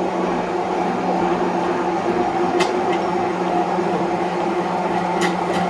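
Electric hand blender running at a steady hum while whipping cream in a bowl, with a few light ticks from the blade against the bowl.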